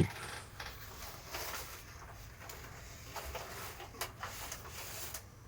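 Faint scattered clicks and rustles of something being handled, with soft room hiss between them.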